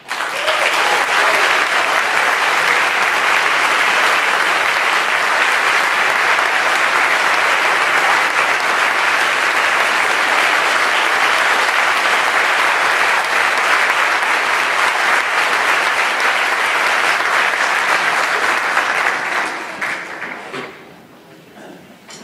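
Audience applause breaking out as the band's last note stops, a dense steady clapping that thins and dies away over the last couple of seconds.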